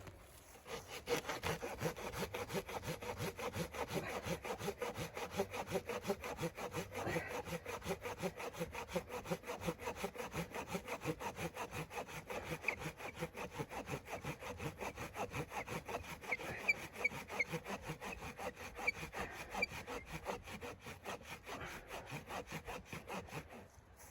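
Hand saw cutting through wood with quick, even back-and-forth strokes that keep up steadily, stopping just before the end.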